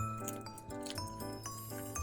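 Background music: a light tune with a held bass line and bright, repeating melody notes.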